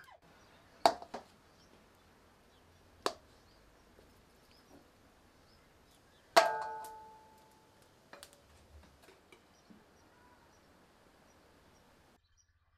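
Metal idli cups and a steel plate clinking as steamed idlis are turned out of the cups: four sharp clinks, the loudest about six seconds in ringing on for about a second.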